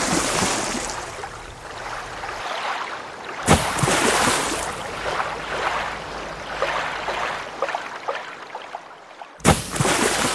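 Rushing water in surges, each starting suddenly and fading over several seconds: a new surge comes about three and a half seconds in and another near the end.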